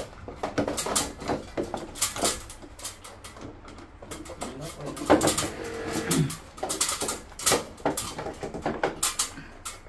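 Irregular hard plastic clicks and knocks as the cross-flow blower wheel of a split air conditioner's indoor unit is handled and fitted back into the housing.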